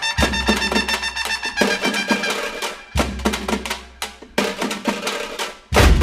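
Background music: a rhythmic track of quick percussion strikes over pitched notes, with deep bass hits a little after the start, about three seconds in and again near the end.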